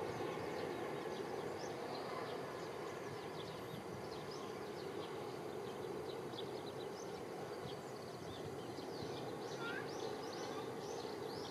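Small birds chirping again and again, with short, quick notes, over a steady distant hum of open-country background noise.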